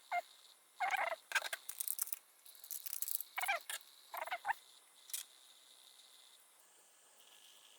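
Short bursts of chirping animal calls, about six in the first five seconds, each a quick wavering warble, then only faint hiss.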